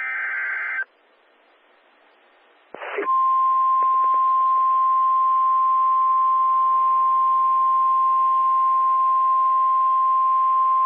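EAS alert signal, likely off a NOAA Weather Radio receiver. It opens with the last of the SAME digital header bursts, a short electronic warble. After a short pause and a brief crackle, the steady 1050 Hz weather alert tone sounds for about nine seconds over faint radio hiss, announcing a flash flood warning.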